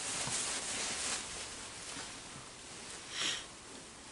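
A person's quiet breathing and clothing rustle, with one short, sharp sniff about three seconds in.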